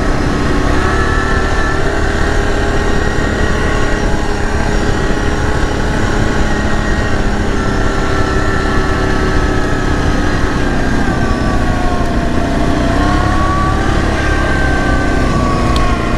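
CFMoto X8 ATV engine running under way, its note rising and falling gently with the throttle over a steady low rumble.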